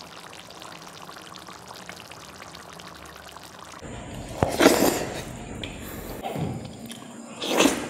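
Liquid being poured in two short loud bursts, about four and a half and seven and a half seconds in, after a few seconds of low steady hiss.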